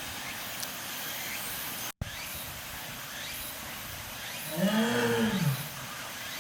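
A big cat gives one low, moaning call about a second long near the end, rising and then falling in pitch: the start of a roaring bout.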